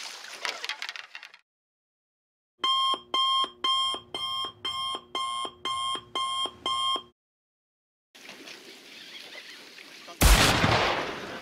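Electronic alarm-style beeping laid over dead silence: about ten evenly spaced, ringing beeps at roughly two a second, lasting about four and a half seconds. Boat and water noise then returns, with a sudden loud blast of noise near the end.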